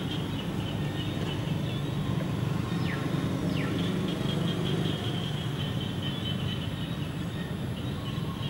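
Outdoor background sound: a steady low rumble under a high, unevenly pulsing chirr, with two short falling whistles about three seconds in.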